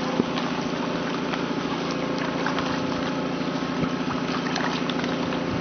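Portable water pumps running steadily with an even engine drone, pumping water into an AquaDam water-filled cofferdam to fill it.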